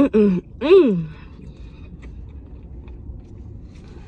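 A woman hums a sing-song "mm-mm-mmm" of enjoyment with her mouth full, four rising-and-falling notes over about the first second. Then there is faint chewing over a low steady rumble.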